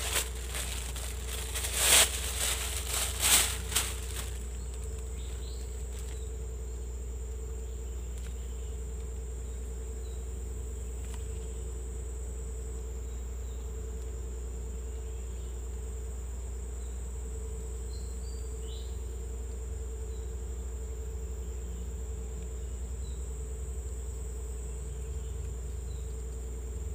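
A plastic bag crinkles a few times in the first few seconds. After that comes a steady insect chorus: a constant high-pitched buzz over a lower, pulsing drone.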